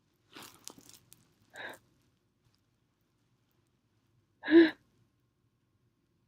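A woman sneezes once, a short, loud burst of voice about four and a half seconds in, after a few faint sniffs and breaths. The sneeze is set off by the scent of a soap.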